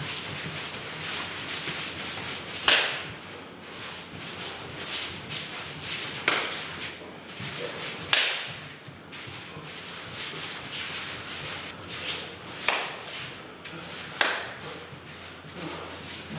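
Sumo practice: about five sharp slapping impacts a few seconds apart, over steady shuffling and scraping of feet on the practice ring's sand.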